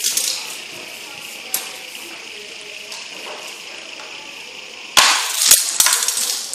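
A spinning fidget spinner whirring steadily. About five seconds in, a die-cast toy car crashes with three sharp clacks and a rattle, a rough hit.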